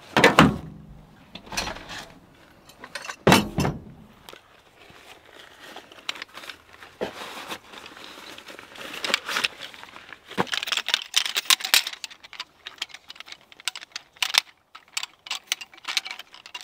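Crinkly rustling with many scattered small clicks, and two heavier knocks, one at the start and one about three seconds in: things being handled close to the microphone.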